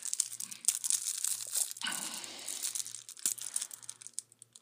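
Clear plastic shrink wrap on a pack of trading cards crinkling and tearing as fingers pick it open, an irregular run of crackles with a few sharper snaps.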